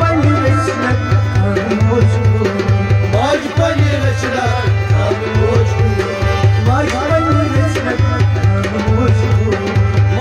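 Kashmiri folk music: matka (clay pot drum) and dafli beating a fast, steady rhythm under a sliding rabab and sarangi melody.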